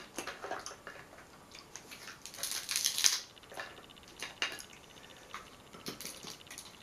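Crab leg shell being cracked and snapped apart by hand: scattered clicks, then a crunching burst of crackles about two and a half seconds in, and a few more snaps near the end.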